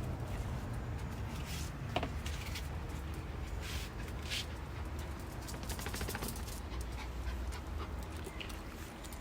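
A Maltese dog panting, with short irregular breathy bursts over a steady low rumble.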